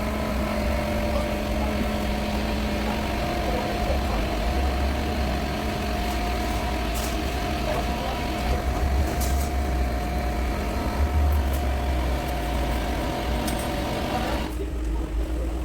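An engine running steadily with a low drone and a constant hum, a few light clicks over it, changing abruptly near the end.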